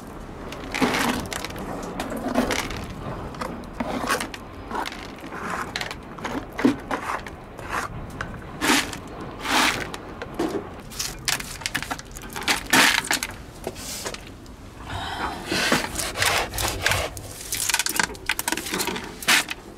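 Irregular scraping and rubbing strokes on rock, with small knocks, as small sea snails are scraped off a boulder into a bucket.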